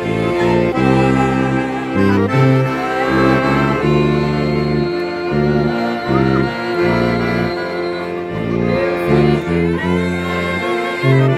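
Accordion playing a tune with its bass notes, together with a slide trombone.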